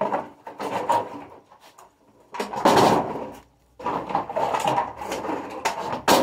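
Empty plastic bottles and plastic bags crackling and clattering as they are picked up and sorted by hand, in uneven bursts with short pauses, the loudest about halfway through.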